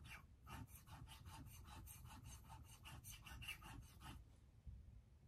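Scissor blade being stroked back and forth on a whetstone, about five short, faint scraping strokes a second, stopping a little past four seconds in.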